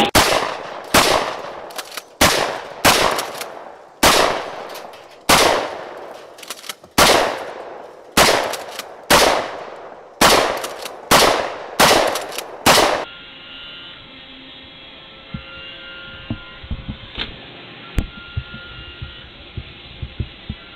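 DP-12 12-gauge double-barrel pump shotgun firing about once a second, some fourteen shots, each with a ringing tail. The shooting stops about 13 seconds in, giving way to a faint steady background with a few small clicks.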